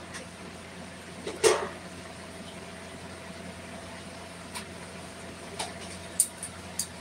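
Steel kitchen dishes and utensils being handled: one louder clank about a second and a half in, then a few light clicks and taps near the end, over a steady low hum.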